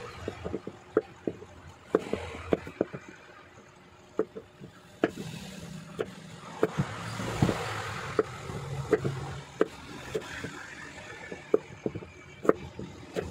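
Kitchen knife slicing okra on a wooden chopping board: irregular sharp taps of the blade striking the board, one to three a second. A rushing background noise swells and fades in the middle.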